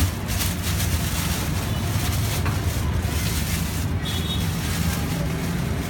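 Steady background noise of a street at night: a constant low hum under an even hiss.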